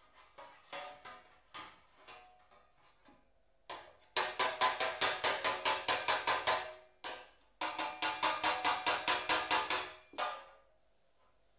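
A sheet-metal panel being slapped with a Toptul body spoon over a leather sandbag: a few light taps, then two quick runs of strikes at about six a second, the panel ringing with each blow.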